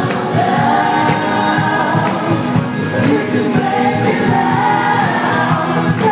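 Live concert music: a lead singer and backing voices holding long notes over the band, heard from far back in the audience.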